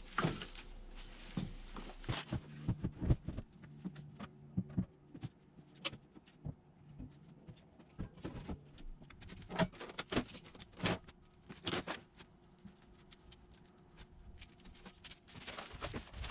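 Irregular knocks, clunks and rattles of tools and stored items being handled, moved and set down while a cluttered shop is tidied, with a low hum for a few seconds near the start.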